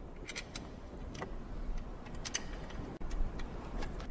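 Light metal clicks and taps, about seven scattered through, the loudest a little past two seconds in, as the electric motor is set back onto the pump's motor stool, over a low steady hum.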